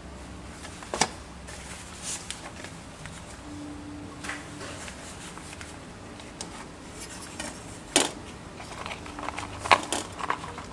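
Clear plastic containers of incense cones being handled: scattered sharp plastic clicks and knocks as the tubs are moved, opened and the cones picked out. The loudest clicks come about a second in, about eight seconds in and shortly before the end.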